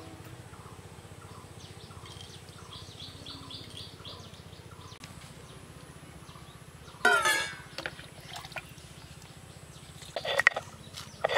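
Quiet rural outdoor ambience with small birds chirping in short repeated bursts. A brief louder sound cuts in about seven seconds in, and a run of sharp clicks and knocks comes near the end as utensils are handled by a stone grinding slab.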